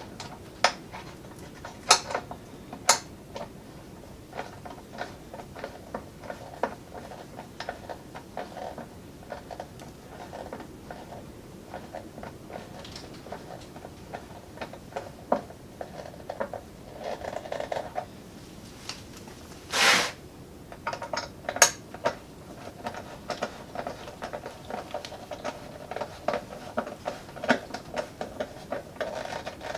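Hand tools and metal parts clinking and tapping as parts are bolted back onto a mini bike frame, with irregular clicks, short runs of rapid clicking and a brief louder rasp about two-thirds of the way through.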